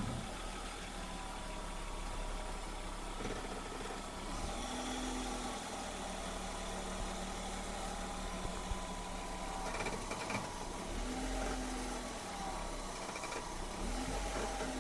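BMW E46 320i straight-six idling while the steering is turned, with a short low creak that rises and falls about three times. The creak comes from a dry rubber boot at the front wheel's steering joint, and oiling that boot cured it.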